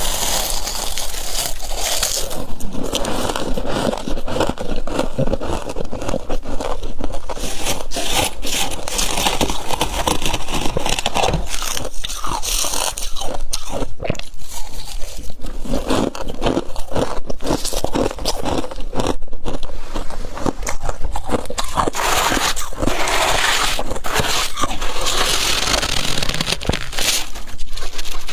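Close-up squeaky crunching and crackling of powdery humidifier frost being crushed and bitten, a dense run of crunches with no pause.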